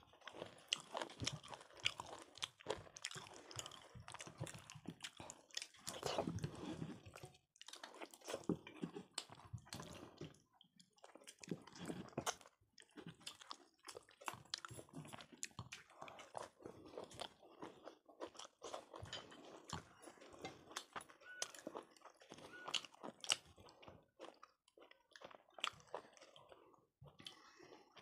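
Close-up eating sounds from khichdi, chicken kosha and brinjal fry: steady chewing and biting with many small wet mouth clicks, pausing briefly now and then.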